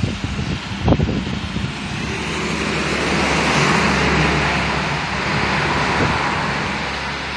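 A car passing on the road, its tyre and engine noise swelling over a couple of seconds and then slowly fading. Near the start, wind buffets the microphone with low thumps.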